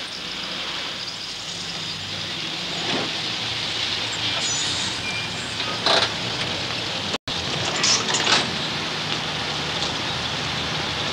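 Ambulance van's engine running steadily as it pulls up and stops, with a few short clunks, one as the cab door opens about six seconds in. The sound cuts out for an instant a little past seven seconds.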